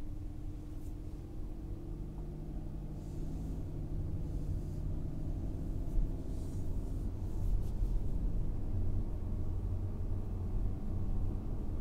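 Volkswagen Golf R (Mk8) driving: its 2.0-litre turbocharged four-cylinder engine running over a low rumble of road and tyre noise, the engine note drifting slightly in pitch. A single short knock about six seconds in.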